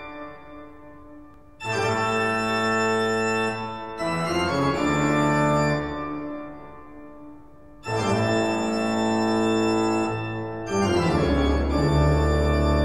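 Background music of sustained organ chords: a new chord comes in about every two to three seconds, holds and fades, with a deep bass note added near the end.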